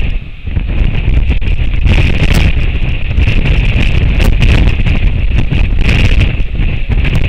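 Strong wind buffeting the camera's outdoor microphone: a loud, continuous low rumble that surges with the gusts, with scattered short crackles.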